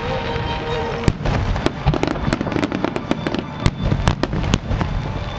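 Fireworks exploding: a rapid, irregular string of sharp bangs, a dozen or more, over a continuous low rumble.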